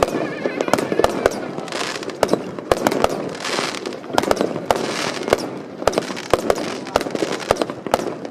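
Aerial fireworks going off in quick succession: many sharp bangs, several a second, with a spell of crackling hiss about three and a half seconds in.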